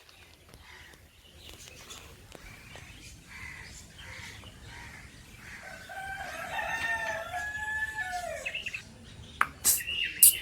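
A rooster crowing once, one wavering call of about two and a half seconds that drops in pitch at the end, with a few faint calls before it. Two sharp clicks come near the end.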